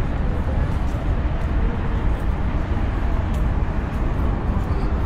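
Steady outdoor urban ambience: a constant low rumble with an even hiss above it and no single sound standing out.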